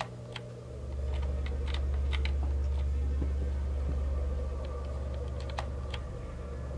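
Scattered clicks on a desktop computer keyboard as someone pages through posts on screen. Under them a low, steady hum rises in about a second in and fades near the end.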